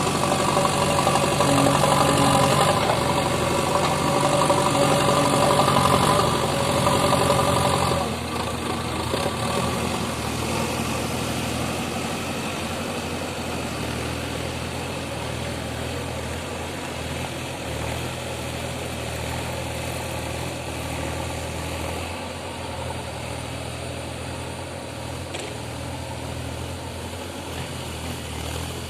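Diesel engine of a JCB earthmoving machine running, louder and higher-pitched for about the first eight seconds, then dropping suddenly to a lower, steady run.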